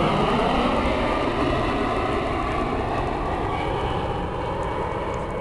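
Steady rushing noise of a passing vehicle, slowly fading.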